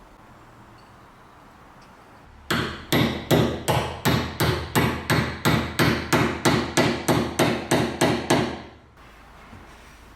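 A hammer striking repeatedly at an even pace, about three blows a second for some six seconds, then stopping.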